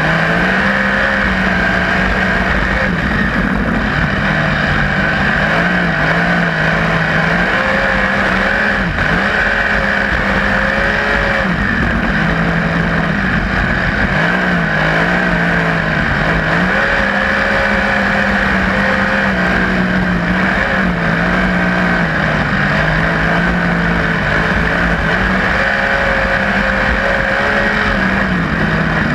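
Onboard sound of a 360 winged sprint car's V8 engine running hard while lapping a dirt oval. The engine note rises and falls every few seconds as the throttle comes off and back on through the turns.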